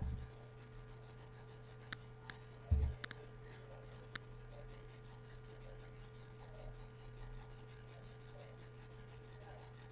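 Steady electrical hum with about five sharp computer mouse clicks between two and four seconds in, and one dull thump just before three seconds.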